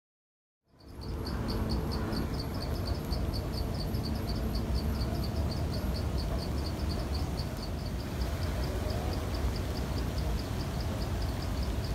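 After a brief silence, an insect starts calling in a steady high pulsing trill, about four or five pulses a second, over a constant low rumble.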